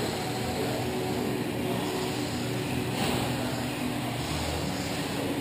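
1/10-scale 2wd electric RC buggies with 17.5-turn brushless motors running laps on an indoor dirt track: a steady mix of motor and tyre noise.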